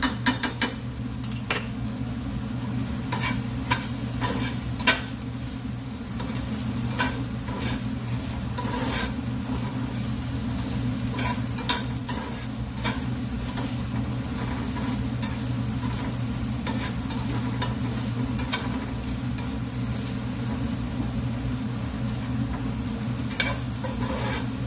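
Sliced onions frying and sizzling steadily in a nonstick frying pan while a metal slotted spatula stirs them, with frequent clicks and scrapes of the spatula against the pan. A steady low hum runs underneath.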